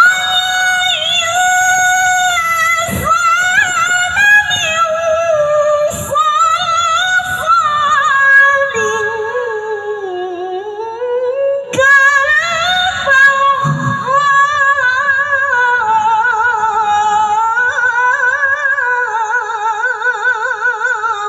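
A woman's voice reciting the Qur'an in the melodic tilawah style, amplified through a handheld microphone: long drawn-out phrases of held, quavering, ornamented notes. The first phrase sinks low about ten seconds in and breaks for a breath near twelve seconds, then a second long phrase begins.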